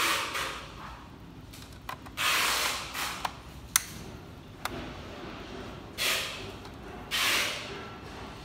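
Hand screwdriver turning screws out of a projector's circuit board: several short scratchy grinding bursts, with a few sharp clicks in between.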